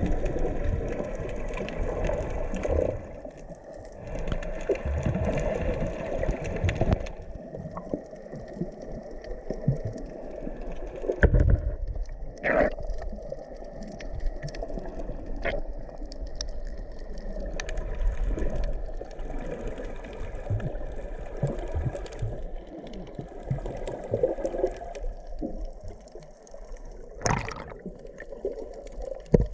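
Underwater bubbling and gurgling, with scattered clicks and a few short louder bursts of bubbles.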